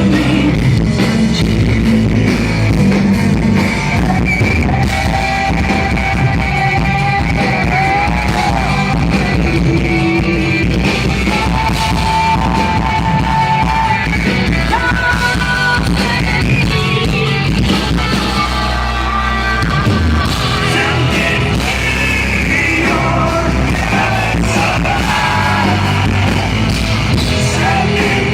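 Live rock band performance, loud and distorted as recorded from the crowd: electric guitars, bass and drums with a singer holding long sung notes.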